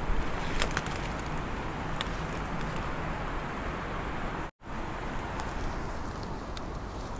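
Steady outdoor background noise with a low rumble and a few soft clicks. The sound cuts out for an instant about halfway through.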